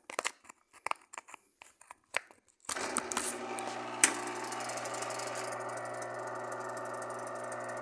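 A few seconds of handling clicks, then an electric motor is switched on and runs steadily with a hum, making the noise of a worn bearing. The belt is off, so it runs unloaded. A sharp click comes about a second after it starts.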